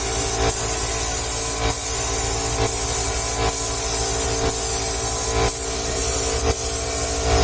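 Compressed-air paint spray gun hissing steadily as it sprays paint, over the steady hum of the air compressor that feeds it.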